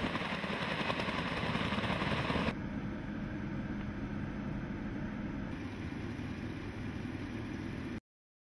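Helicopter running on the ground with its rotor turning: a steady turbine and rotor noise. It drops to a quieter, duller sound about two and a half seconds in and cuts off abruptly near the end.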